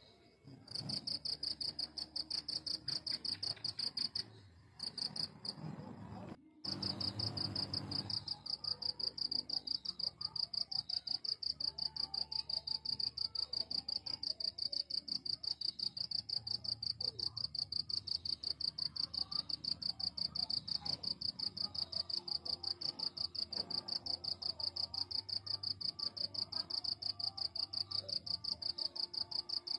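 A cricket chirping: a high, fast pulsing trill that starts about a second in, breaks off twice briefly in the first several seconds, then goes on steadily.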